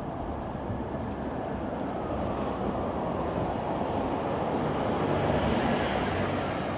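Wind and city street traffic: a steady rushing that swells about five seconds in, then eases.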